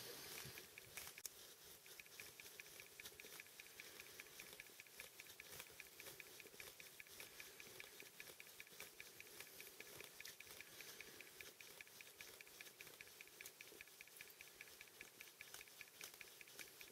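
Near silence, with a faint, rapid, even ticking and a light scratchy patter underneath.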